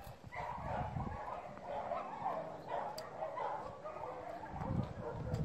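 A dog whining: a thin, wavering sound that goes on without a break.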